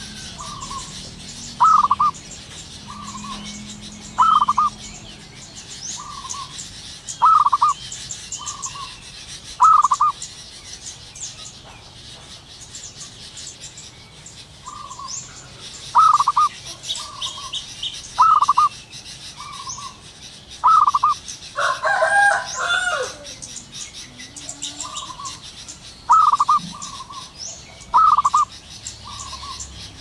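Zebra dove cooing: short staccato notes in twos and threes, repeated every second or two, with a pause of a few seconds partway through. Faint, quick high chirps from other birds run underneath, and about two-thirds of the way in a louder, rougher call breaks in.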